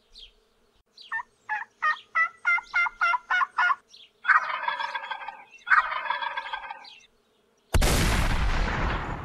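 Turkey yelping, about eight short notes in a row, followed by two rattling wild turkey gobbles of a little over a second each. Near the end a sudden loud noise starts and slowly dies down.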